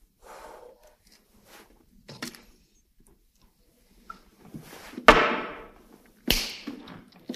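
Faint rustling, then two sharp thumps a little over a second apart; the first is the louder and trails off briefly.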